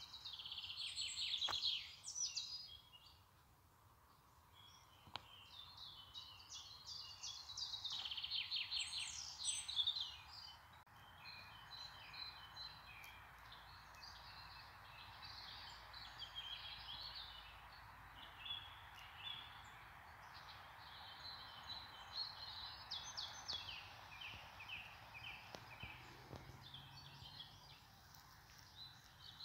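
Small birds singing and chirping in rapid trills over a faint steady hiss, the song loudest in the first ten seconds or so.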